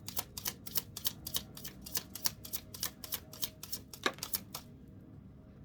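A deck of reading cards being shuffled by hand: a quick run of crisp card slaps, about five a second, that stops about four and a half seconds in.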